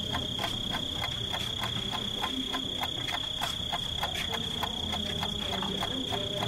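Footsteps of a group walking along a hard corridor floor, a quick patter of steps, over a steady high-pitched electronic whine.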